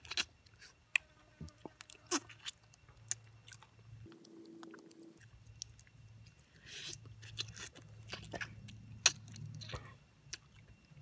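A person eating cooked blood cockles: wet chewing and sucking, with irregular sharp mouth clicks and smacks.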